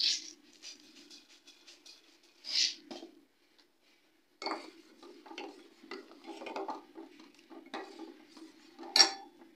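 A metal spoon clinking against a metal pot and scraping around inside it, stirring rice cooked in milk. There are sharp clinks at the start and a few seconds in, a busy run of scraping in the second half, and a loud clink near the end.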